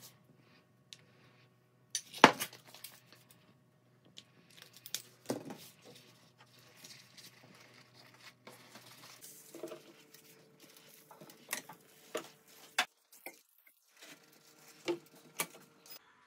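Hand-made kitchen sounds: a sharp clink of a spoon against the sauce bowl about two seconds in, then scattered taps and the soft rustle of thin lavash flatbread being rolled up around the filling.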